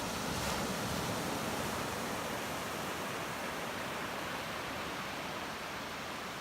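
Steady wash of ocean surf, a little louder in the first couple of seconds and easing slightly after.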